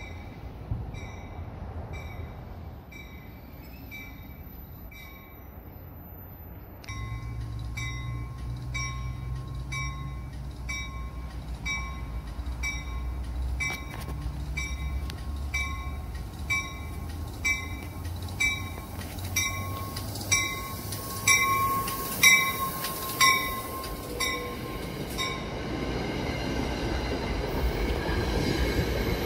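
NJ Transit commuter train approaching and pulling past with its bell ringing steadily, a little under two strokes a second, the strokes growing louder as it nears. Near the end the cars roll past close by with a rising rush of wheel and rail noise.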